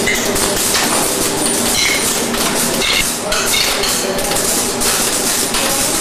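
A PVC rubber label making machine running: a steady, dense clatter of many small clicks and knocks as metal molds move along its conveyor.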